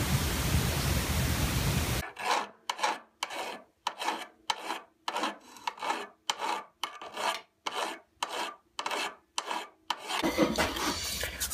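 Hand file being worked over the end of a square steel bar clamped in a bench vise, in even strokes at about two a second. The file is cleaning up the bottom of a homemade carbide-tipped lathe tool shaft. A steady hiss comes before the strokes start and again after they stop.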